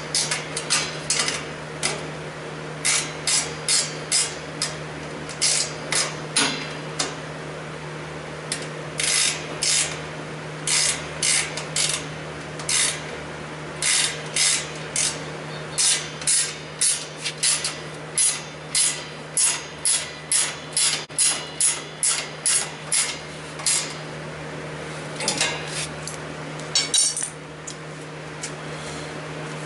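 Hand-tool work: runs of quick, sharp strokes, about two or three a second, broken by short pauses, over a steady low hum.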